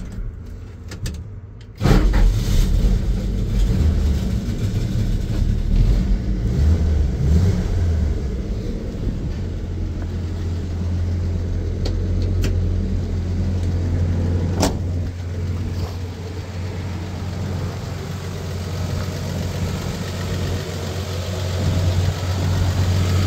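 1979 Dodge D100's Slant Six engine starting about two seconds in, running unevenly for several seconds, then settling into a steady, quiet idle, just ticking away like a sewing machine. A single sharp click comes about halfway through.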